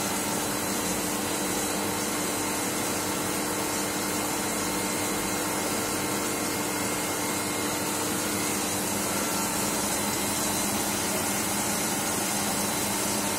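CNC wire-cut EDM machine running: a steady, unchanging hum and hiss with a few steady tones in it.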